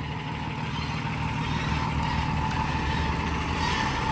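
A heavy goods truck's diesel engine running steadily close by, with a faint steady whine above the low rumble.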